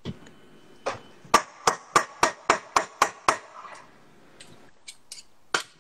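A utensil knocking against a stainless steel mixing bowl as pancake batter is stirred: a quick run of about nine sharp clinks, roughly three a second, trailing off into a few fainter taps.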